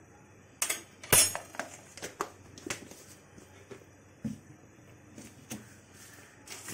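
Kitchen utensils and steel dishes clinking and knocking: a cluster of sharp clacks about a second in, then lighter taps and clinks every second or so.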